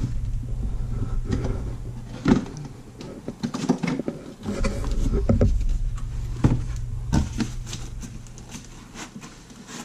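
A cardboard shipping box being opened and handled: flaps pulled open, cardboard scraping and knocking in scattered sharp bursts, then plastic wrapping and styrofoam packing rustling as hands reach in to the pan. A steady low hum sits under it, dropping out briefly about three seconds in.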